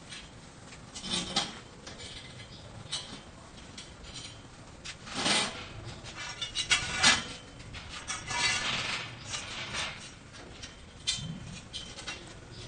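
Galvanized steel scaffold frames and cross braces being handled and fitted together: scattered metal knocks and scraping, loudest about five to seven seconds in.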